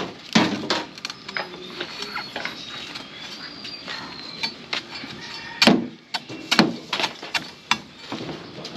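Machete chopping into a coconut's husk: a string of sharp chops, with lighter cuts in between and the hardest blows coming close together from about five and a half to seven seconds in.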